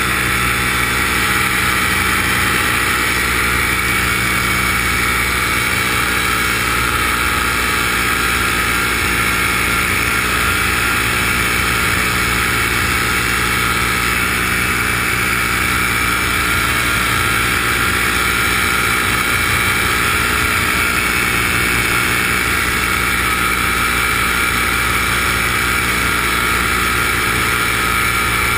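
A small aircraft's engine and propeller running steadily in cruising flight, close to the microphone, with no change in pitch.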